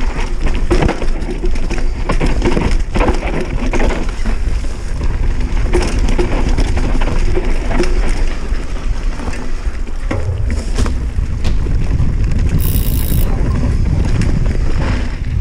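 On-board sound of a Giant Reign full-suspension enduro mountain bike descending a steep, stony dirt trail: tyres crunching over loose rock, and the chain and frame rattling with many short knocks. Wind rumbles on the microphone throughout, growing heavier about ten seconds in.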